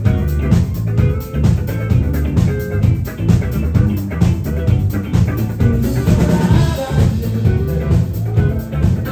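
A live band playing with drum kit, bass and guitar over a steady beat.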